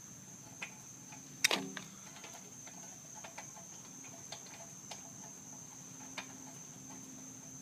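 A steady high insect trill in the background, with one sharp click about a second and a half in and a few faint ticks and taps as a spark plug is worked out of a small generator engine by hand.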